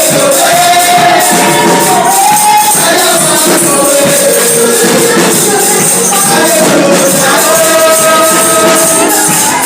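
Music: singing, with a tambourine jingling along.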